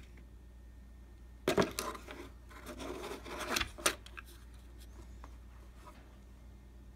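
Laser-cut wooden insert tray loaded with wooden pieces and tokens being lowered into a cardboard game box. A couple of sharp wooden knocks come about one and a half seconds in, then the tray slides and its contents rattle, ending in a sharp click just before four seconds.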